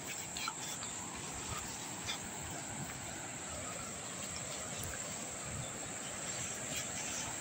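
Steady high-pitched insect chorus, with soft rustling and footsteps through tall grass underneath.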